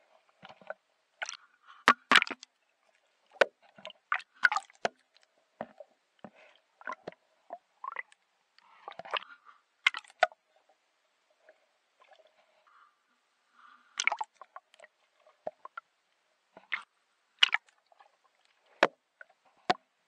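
Water sloshing and gurgling around an action camera held underwater, with irregular sharp clicks and knocks scattered throughout.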